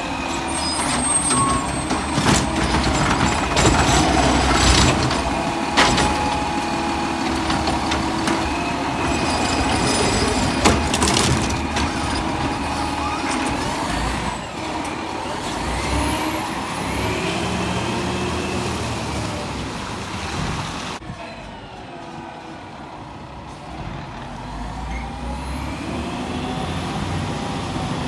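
Diesel Autocar ACX garbage truck with a McNeilus ZR automated side-loader running and revving to drive the hydraulic arm. In the first half there are several sharp clanks as carts are lifted and emptied, along with air-brake hisses. Later it goes quieter, with the engine revving up as the truck moves on.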